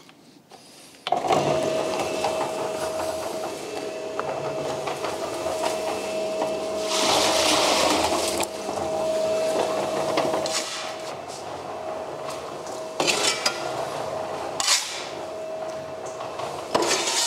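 Electric cement mixer starting up about a second in and running with a steady hum, dry sand and cement tumbling and rattling in the turning drum as material is tipped in. A louder rush partway through, and a few sharp shovel scrapes near the end.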